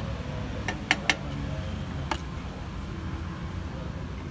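A few light clicks and knocks from a plastic container and a takoyaki pan being handled as boiled instant noodles are portioned into the pan's cups: three close together about a second in, and another near the middle. Under them runs a steady low rumble of roadside traffic.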